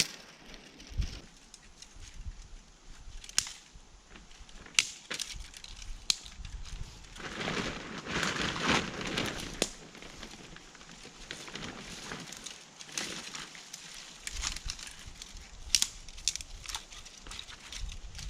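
Footsteps crunching through dry leaf litter and snapping twigs on a woodland trail, in an uneven walking rhythm with sharp cracks, and a longer rustle of leaves about halfway through.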